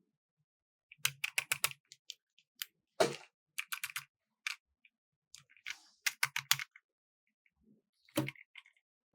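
Small plastic toy pieces being handled: sharp clicks and taps in short clusters, with silent gaps between.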